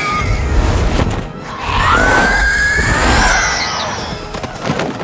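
Film battle soundtrack: orchestral score over a deep rumble and crashes, with a long rising screech about two seconds in and a few sharp impacts near the end.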